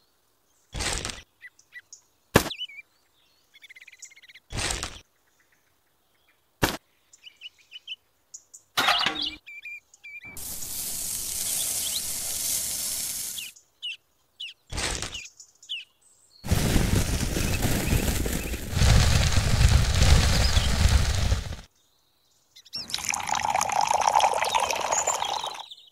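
Light knocks and taps of small objects being set down, then sand poured in a stream into a small metal can, a second, louder and longer pour, and near the end water poured into the can. Faint bird chirps behind.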